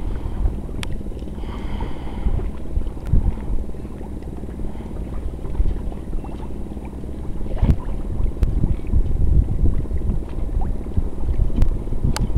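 Wind buffeting the microphone: a gusty low rumble that rises and falls, with a few light clicks.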